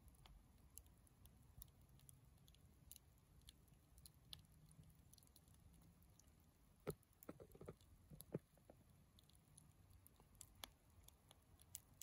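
Wood bonfire crackling faintly: scattered small pops and ticks from the burning logs over a low rumble, with a brief run of louder pops about seven to eight seconds in.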